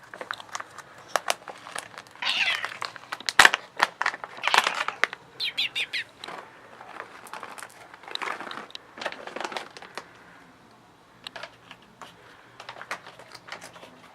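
Bengal cat meowing several times, short pitched calls about two, four and a half, and five and a half seconds in, amid crinkling and clicking from a packet of cat treats being handled.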